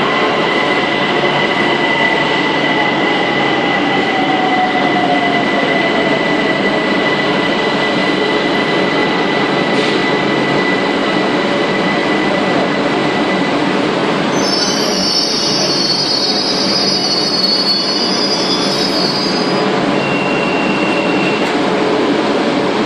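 Metro train pulling into the station and slowing to a stop, with steady rolling noise throughout. Its motor whine falls in pitch over the first several seconds, a steady high whine runs on, and a high hissing squeal comes about two-thirds through as it halts. A short high tone sounds near the end.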